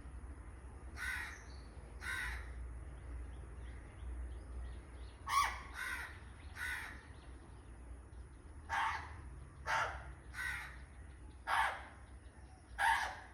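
A parrot imitating a crow, giving about ten short caw calls at uneven intervals, some in quick pairs.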